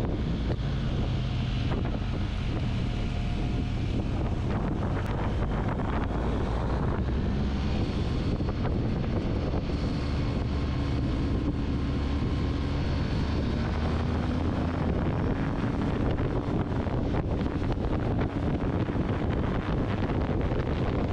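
Adventure motorcycle engine running steadily at road speed, with heavy wind rushing over the camera microphone.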